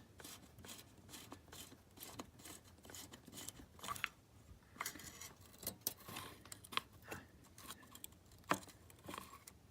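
Irregular light clicks and scrapes of hand tools and small metal parts being handled as a pit bike's carburetor is being taken off.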